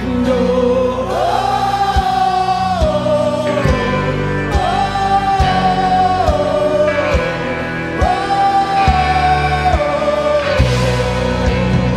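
Live worship band playing, with voices singing long held, gliding notes over the band and a drum kit keeping a steady beat.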